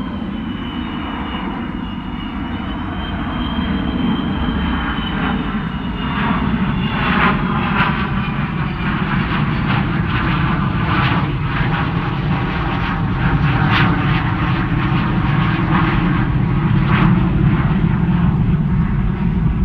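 Avro Vulcan B.2's four Rolls-Royce Olympus turbojets roaring as the delta-wing bomber banks past. A high, wavering whine sits over the jet noise for the first few seconds. About six seconds in the sound grows louder and rougher.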